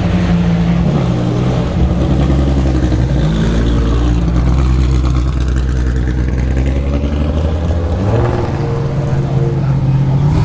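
Ferrari sports car engine running with a deep, steady note. Its pitch drops about one and a half seconds in, holds low, then rises again about eight seconds in.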